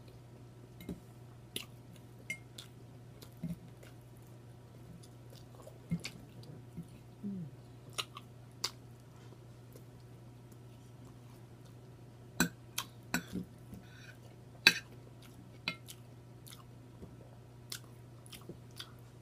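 Close-up mouth sounds of someone eating: chewing with scattered wet lip smacks and clicks, a few louder smacks bunched about two-thirds of the way through.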